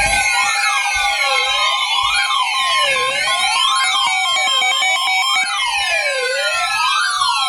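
Layered electronic emergency alert tones: siren-like tones sweep up and down about every one and a half seconds over steady alert tones, sounding the alarm for a severe thunderstorm warning.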